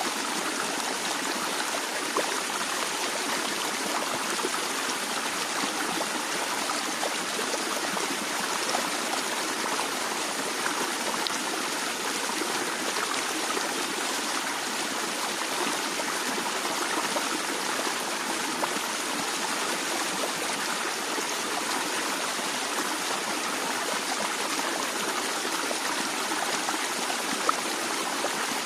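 A stream of water flowing and trickling steadily over rocks, an even splashing wash with small bright drips and gurgles scattered through it.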